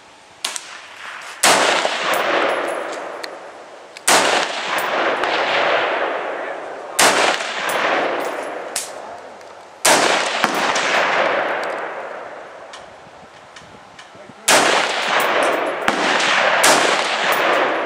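Stag Arms Model 4 AR-15 rifle in 5.56 mm firing six single, deliberately spaced shots a few seconds apart. Each crack is followed by a long echo that dies away over a couple of seconds. A fainter shot sounds about half a second in.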